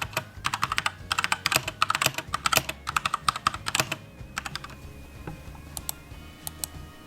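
Typing on a Keychron K2 mechanical keyboard with brown switches: a fast run of key clacks for about four seconds, then a few scattered keystrokes.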